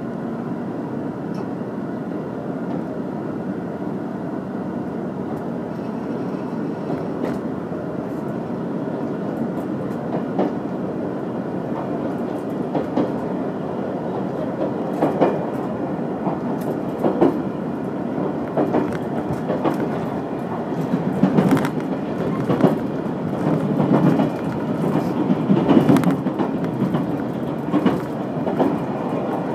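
Limited express train running, heard inside the carriage: a steady rumble, with the clickety-clack of the wheels over rail joints growing more frequent and louder in the second half.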